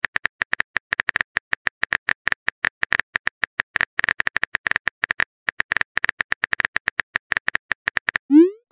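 Rapid run of phone keyboard typing clicks as a message is typed out letter by letter, with a brief pause about five and a half seconds in and stopping near the end.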